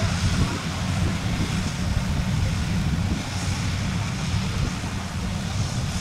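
Kubota DC70 combine harvester running steadily while cutting rice: a continuous low engine drone with the hiss of the cutting and threshing machinery above it.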